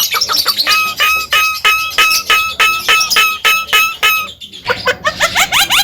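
Javan myna (jalak kebo) singing a rapid string of repeated harsh notes, about four a second. After a short break near the end it switches to fast upward-sweeping whistled notes.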